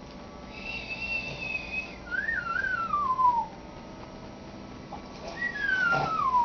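A person whistling: a held high note, then a wavering note sliding down, and after a short pause a second falling whistle near the end.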